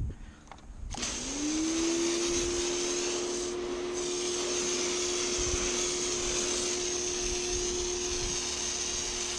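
PowerWorks 2000 PSI electric pressure washer starting up about a second in, its motor whine rising and settling to a steady pitch, with the hiss of water spraying from the wand's soap nozzle.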